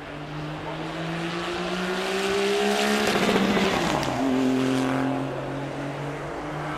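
A car engine accelerating as it passes, its note climbing steadily, then dropping sharply as it goes by at its loudest, and holding lower as it moves away.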